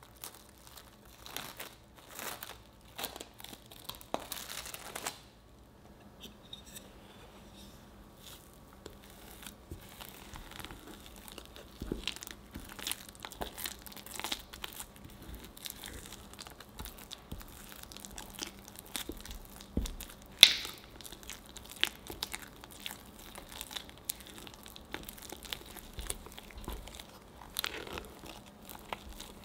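Plastic cling wrap crinkling as it is peeled off a glass bowl. Then a wooden spatula stirs and kneads freshly microwaved, sticky glutinous rice dough in the bowl, with tacky tearing and squishing, clicks of the spatula against the glass, and one sharp knock about twenty seconds in.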